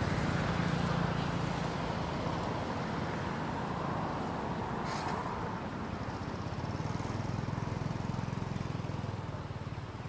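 A motor engine running steadily, likely a passing vehicle, fading somewhat near the end.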